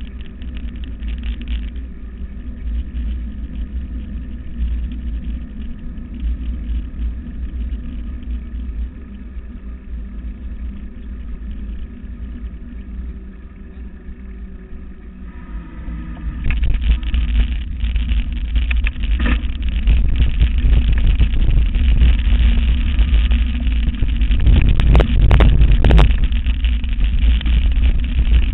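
Mountain bike rolling fast behind a dog team: steady low rumble and tyre hum on asphalt. About halfway through it turns louder and rougher, a rattling and bumping as the bike moves onto a dirt track, with a few sharp knocks near the end.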